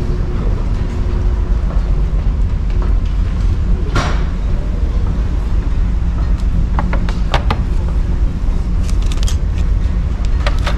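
Steady low rumble of a ferry under way, with a few sharp clicks and knocks on top, the loudest about four seconds in.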